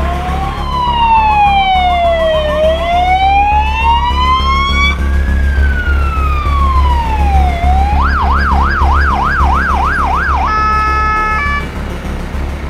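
Emergency vehicle sirens wailing in slow rising and falling sweeps, two sirens overlapping at first. About eight seconds in, one switches to a fast yelp for a couple of seconds, followed by a short steady tone, over a steady low engine rumble.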